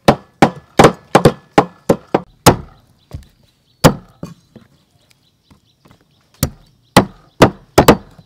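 Cleaver chopping raw chicken on a round wooden chopping block: sharp chops, a quick run of about eight in the first two and a half seconds, a single chop near four seconds, then another run of about five near the end.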